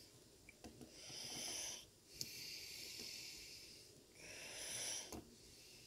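A person breathing audibly close to the microphone: three long, faint breaths, with a couple of faint clicks in between.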